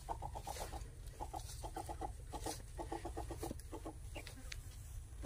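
Chickens clucking in quick runs of short notes, several runs one after another, over a steady low rumble.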